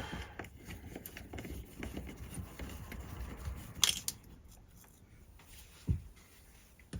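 Small metallic clicks and rustling as a screw is worked out of a Murphy bed mounting bracket in a stripped screw hole, with a sharper click about four seconds in and a dull knock near the end.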